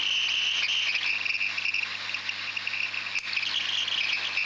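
Hot air rework gun blowing on a phone circuit board to melt the solder of the SIM card reader's pins: a steady high-pitched whine of its blower with airflow hiss, over a low hum.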